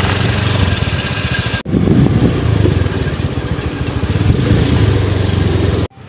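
Motorcycle engine running under way, heard from the pillion seat, with rapid even pulsing and a brief break about a second and a half in.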